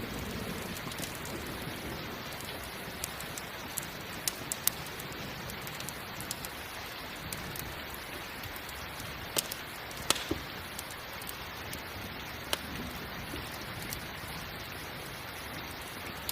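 Steady rain falling, broken by scattered sharp pops from a crackling campfire, a few of them louder than the rain. A low thunder rumble dies away in the first second.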